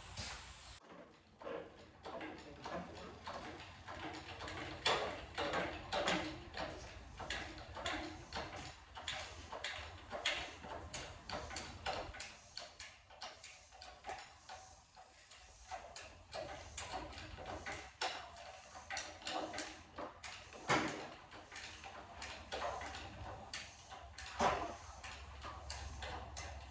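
Irregular light metallic clicks and clanks of hardware being handled at an engine hoist, with a few louder knocks scattered through.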